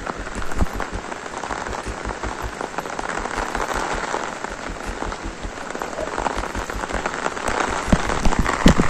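Steady rain falling on the lake surface, a dense hiss of many small drop ticks, with a few louder close knocks near the end.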